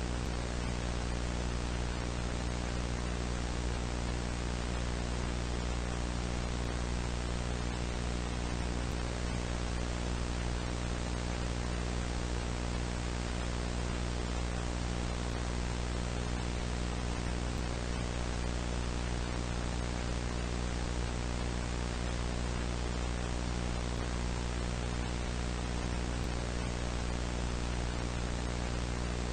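Steady static hiss with a low hum underneath, unchanging in level, like a television with no signal.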